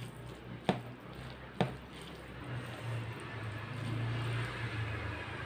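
Close-miked eating of mutton curry and rice: two sharp mouth clicks about a second apart, then chewing over a low steady hum.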